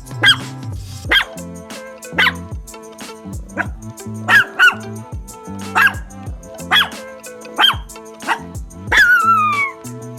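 Chihuahua barking in short, sharp, high-pitched barks, roughly one a second, with a longer yelp falling in pitch near the end. Background music plays throughout.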